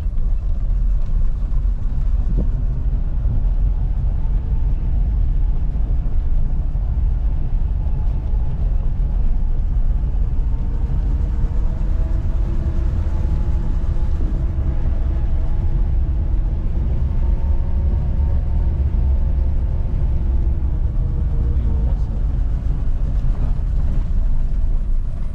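Steady low rumble of a vehicle on the move, engine and road noise, with faint voices in the middle; it cuts off suddenly at the end.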